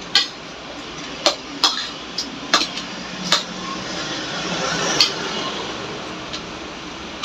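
Metal fork and spoon clinking against a ceramic plate as food is cut and scooped: about eight separate sharp taps, unevenly spaced. A soft rushing noise swells in the middle.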